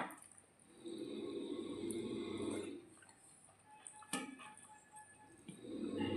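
Close-up eating sounds of watery soaked rice (panta bhat): wet squishing and chewing in two stretches of about two seconds each, with a sharp click at the start and another about four seconds in.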